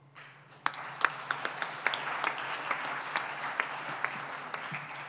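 An audience applauding, many hands clapping, swelling about a second in and dying down near the end.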